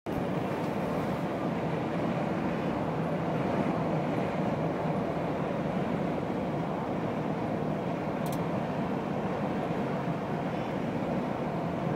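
Steady road and tyre noise of a vehicle travelling at speed on an expressway, heard from inside the vehicle, with one brief high click about eight seconds in.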